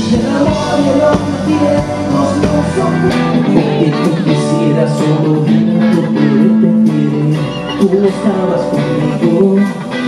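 Live band playing: guitar and drums, with a man singing into a microphone.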